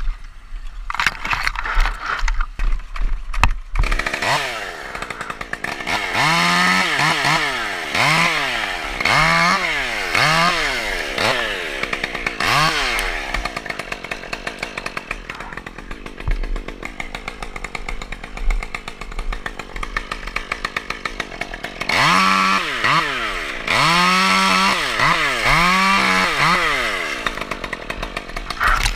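Chainsaw running throughout. In two spells its engine pitch rises and falls in repeated swells about once a second as the throttle is worked.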